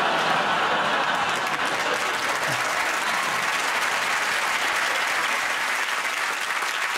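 Studio audience applauding, a dense, steady clapping that eases slightly near the end.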